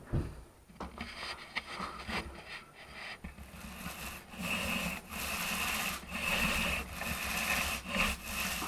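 Paint roller on a long pole rolled back and forth across a ceiling: a rubbing scrape in repeated strokes, louder and steadier from about three seconds in.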